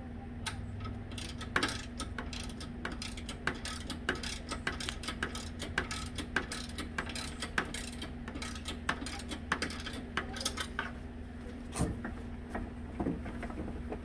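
Rapid, irregular metallic clicks and taps at a treadmill's front drive pulley while the motor's belt-tension bolt is tightened with an Allen key, over a steady low hum. The clicks thin out near the end. The drive belt had gone slack because the bolt was not holding enough tension.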